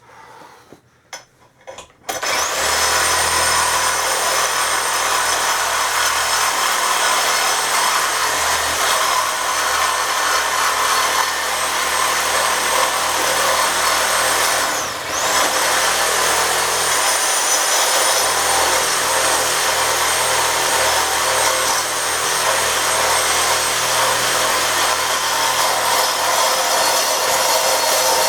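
Bladed power tool cutting at an office chair's middle arm bar: its motor spins up about two seconds in with a rising whine and runs steadily. It stops briefly about halfway, then spins up again and keeps cutting.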